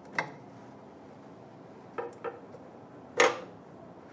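Short metallic clicks and clinks as the UV printer's metal carriage cover and its loosened screws are handled: one at the start, two close together about two seconds in, and the loudest just after three seconds, ringing briefly.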